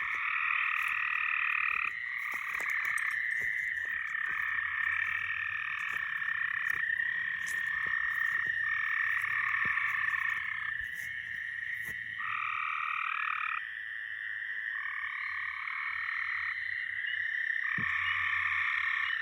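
A chorus of frogs calling without pause, many overlapping calls of a second or two each layered over one another.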